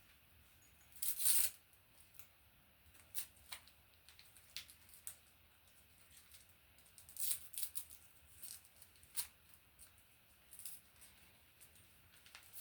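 Faint, scattered clicks and short scrapes of small wire connectors and speaker wire being handled by fingers, with a longer scrape about a second in and a cluster of clicks near the middle.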